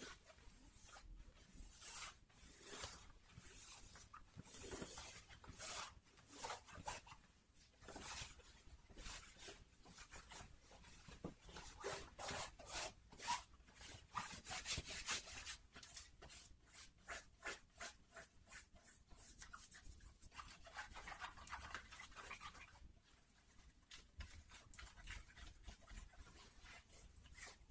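Denim jeans being rubbed and scratched close to the microphone in a long run of short, quick, quiet strokes.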